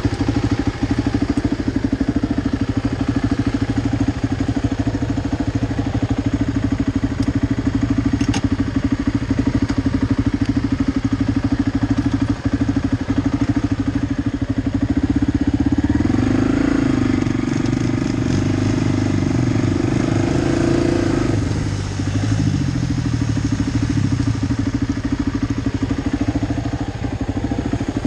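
Quad (ATV) engine idling, then revving up for about five seconds just past halfway before dropping back to idle, as the quad pulls on a tow rope to free a second quad stuck in the ice.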